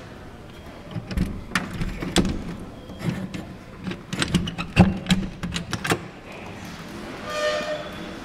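A run of irregular sharp knocks and clatters for several seconds, then near the end a brief high pitched tone with several overtones, like a squeak or distant horn.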